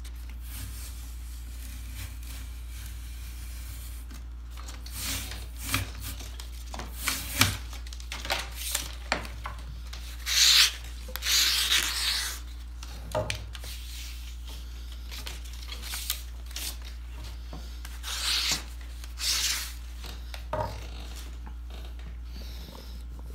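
Knife blade scraping along a black ash splint over a leather knee pad, in a run of scraping strokes of uneven length, the longest and loudest about halfway through. A steady low hum lies underneath.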